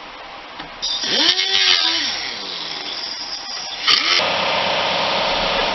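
A cutoff wheel spins up and winds back down, with grinding noise, as it cuts into a fiberglass console. About four seconds in, an air compressor starts and runs steadily.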